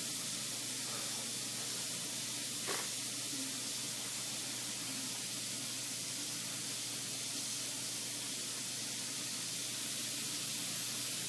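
Steady hiss with a faint low hum beneath it, and one brief tick about three seconds in.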